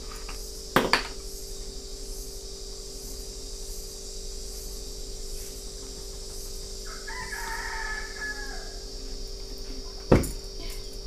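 A rooster crows once, a call of about a second and a half a little past the middle. Two sharp knocks stand out: one about a second in, and a louder one near the end as a plastic sauce bottle is set down on the wooden table. A steady background hum runs underneath.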